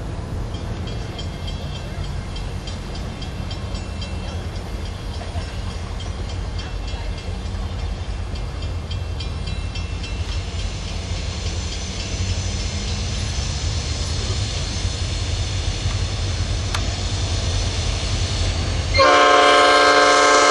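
Norfolk Southern diesel locomotive approaching with its engine rumbling, growing slowly louder. Near the end its air horn sounds in one loud, sudden blast.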